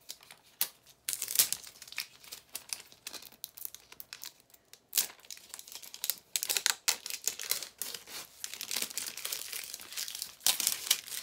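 Crinkling and tearing of a Miniverse capsule ball's wrapper being peeled off by hand, in irregular crackling spells.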